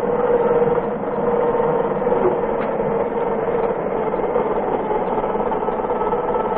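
Electric drive motor of an Emerson aircraft gun turret running steadily as it swings the turret in azimuth toward its left limit stop, a continuous motor whine with a held tone.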